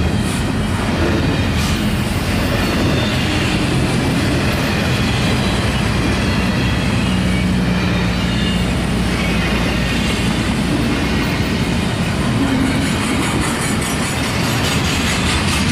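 Double-stack intermodal well cars rolling past on steel wheels, a steady rumble and clatter of wheels on rail.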